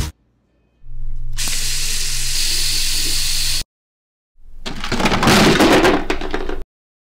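Two spells of loud hissing noise, each cut off abruptly: the first steady over a low hum, the second rougher with rapid crackling.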